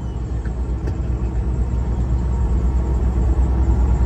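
Steady low rumble of a Peterbilt semi truck's engine and road noise heard from inside the cab while driving, growing slightly louder.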